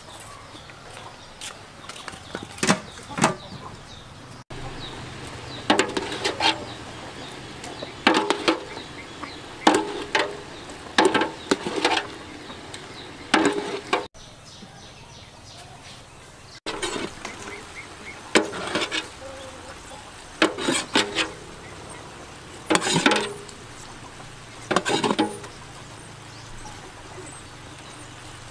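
A metal ladle knocking and scraping against a large metal cooking pot every second or two as a pig's head braising in dark sauce is basted.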